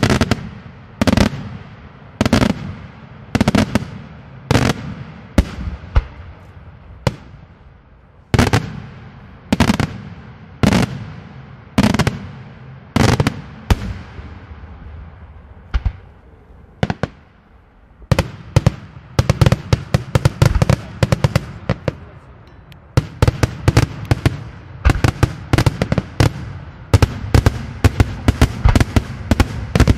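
Daytime aerial fireworks shells bursting with sharp, loud bangs, roughly one a second, each trailing off in an echo. About two thirds of the way through they give way to a rapid, dense volley of many bangs in quick succession.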